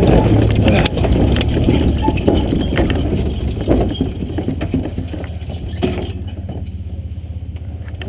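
Truck running over rough ground: a steady low engine rumble with irregular knocks and rattles, which thin out and get quieter after about six seconds.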